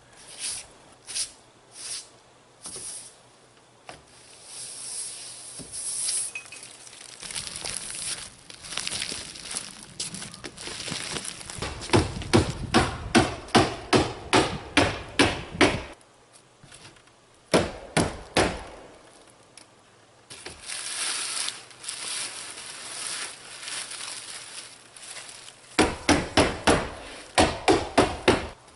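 Hammer striking into plywood roof sheathing in quick runs of about three blows a second, fastening ice and water shield down. Between the runs there is a rustling, scraping noise.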